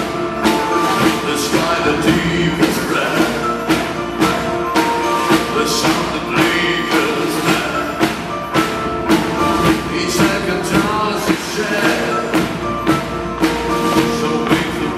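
Live rock band playing, with a steady drum beat under sustained melodic notes.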